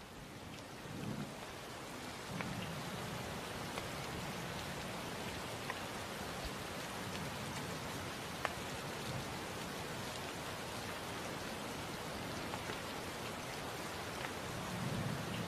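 Steady rain falling, with occasional sharp ticks of single drops. Low rumbles come and go, growing stronger near the end.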